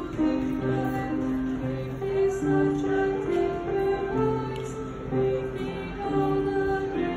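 Solo female voice singing a slow, lullaby-like art song with piano accompaniment, in long held notes over low piano chords.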